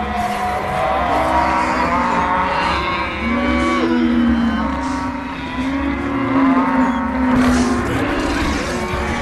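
Exaggerated stomach growling: long, low growls that slide up and down in pitch, several layered over one another without a break.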